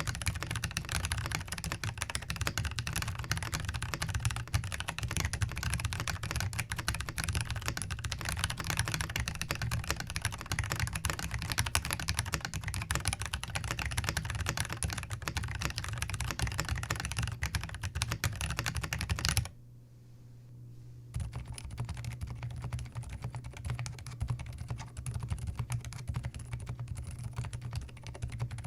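Fast continuous typing on a Zoom TKL mechanical keyboard with Everglide Oreo linear switches, clicks coming many times a second. About two-thirds of the way in the typing stops for a second or two, then resumes more quietly on WS Silent linear switches.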